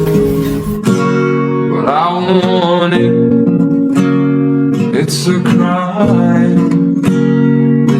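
Background music: strummed acoustic guitar with a sung melody.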